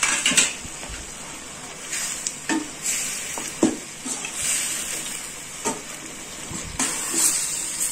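Spatula scraping and knocking against a stainless steel kadai as chicken is stirred together with ground pepper spice mix, with a low sizzle of the food cooking underneath. The knocks come irregularly, several times.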